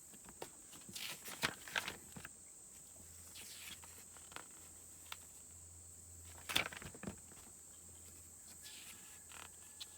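Quiet handling noises from leafing through a paper instruction booklet: a few light rustles and taps about one to two seconds in and a sharper one near the seven-second mark, over a faint steady high-pitched whine.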